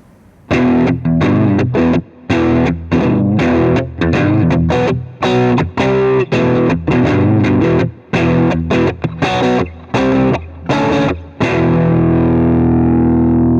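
Fender New Standard Stratocaster electric guitar played through distortion: a riff of loud, chopped chords in short stop-start phrases, ending on one long held chord about two seconds before the end.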